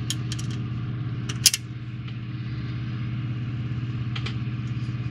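Small sharp clicks and taps of an Allen wrench and tiny screws being worked into a model hull section, the loudest about a second and a half in. Under them runs a steady low mechanical hum with a fast flutter, like an idling motor.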